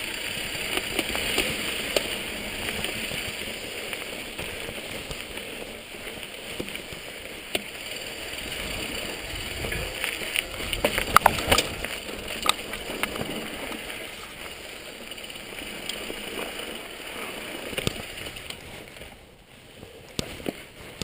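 Mountain bike riding down a rough dirt and rock trail: steady tyre and rolling noise with wind on the camera microphone, sharp knocks and rattles from the bike about halfway through, easing off near the end.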